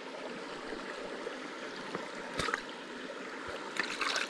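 Small mountain creek flowing steadily over rocks, with a brief sharp splash-like sound about two and a half seconds in and a few more short sounds near the end.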